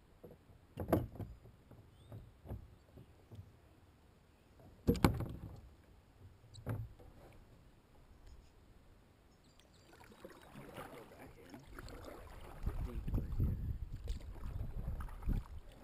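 A few knocks against a sit-on-top kayak's hull, the loudest about five seconds in. From about ten seconds in, a double-bladed kayak paddle stroking and splashing through the water.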